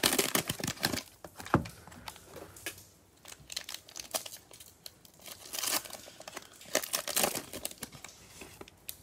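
Plastic wrapper of a Prizm baseball cello pack crinkling and tearing as gloved hands rip it open, in irregular bursts, loudest right at the start and again around six to seven seconds in.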